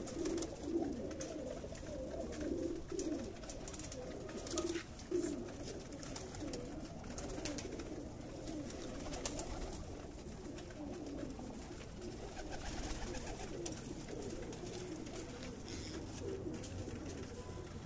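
A flock of domestic pigeons cooing continuously: many low, overlapping coos, with scattered faint clicks.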